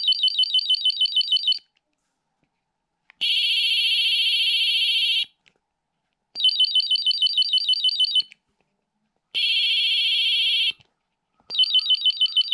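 Bip Pen electronic answer pen beeping as it is touched to answer markers: a high, rapidly pulsing warble with the green light for a correct answer, alternating with a steady unbroken tone with the red light for a wrong one. Five tones in all, warble–steady–warble–steady–warble, each lasting about two seconds with short silences between.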